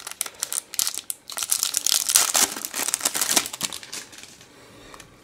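A foil trading-card packet being torn open and crinkled in the hands. The crackle is dense at first and dies away about four seconds in.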